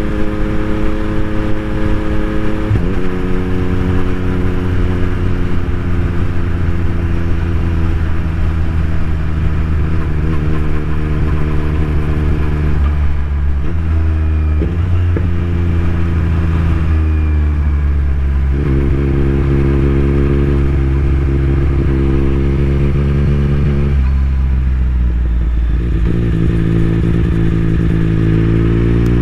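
2021 Yamaha MT-09's 890 cc inline three-cylinder engine running through an Akrapovic carbon full-system exhaust with no dB killer, heard from on board while riding. It holds a steady drone at cruising speed, with the engine speed dropping and climbing again a few times, around halfway and again near the end, as the bike slows and changes gear.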